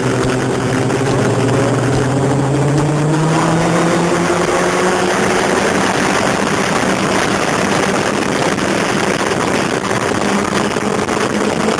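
Sport motorcycle engine at track speed, heard from the bike itself under heavy rushing noise. It holds a steady pitch at first, then from about three seconds in the pitch climbs slowly as the bike accelerates.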